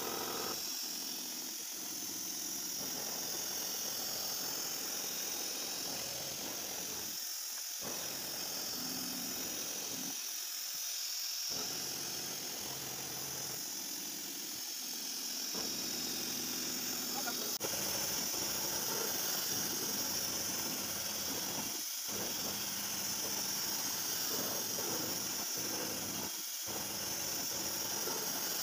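CNC vertical milling machine's end mill cutting a clamped metal plate: a steady high-pitched spindle and cutting whine with a hiss underneath.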